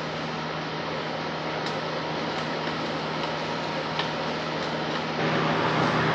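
Steady fan-like hum with a few faint small clicks; it gets a little louder about five seconds in.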